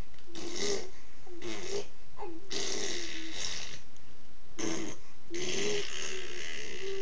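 A baby blowing raspberries, buzzing his lips with his voice sounding through them, in about five bursts, two of them over a second long.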